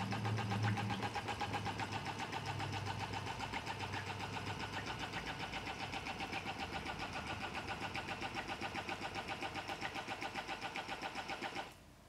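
Chatter Duck remote-controlled mallard hen decoy running on its continuous setting, a rapid, steady mechanical chattering of about six pulses a second as it churns and splashes the water. This setting is meant to give the sound of flapping wings. It cuts off suddenly near the end.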